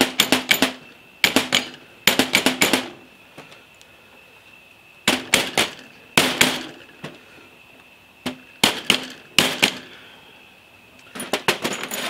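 Soft-faced hammer tapping on a steel lathe collet closer in short bursts of quick blows, with a faint metallic ring, driving a part back against its snap ring during reassembly.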